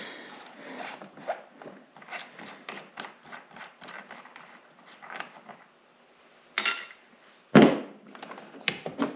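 Plastic snowmobile console pieces and fasteners being worked loose by hand: a run of small clicks and rattles, then a sharp click about six and a half seconds in and a louder knock a second later.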